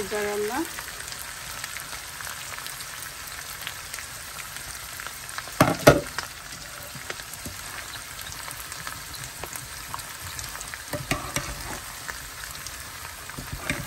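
Liver curry sizzling and bubbling in a pot as a metal ladle stirs it, with one short loud clatter of the ladle against the pot about six seconds in.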